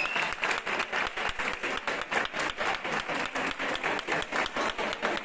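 Crowd clapping in a quick, steady rhythm.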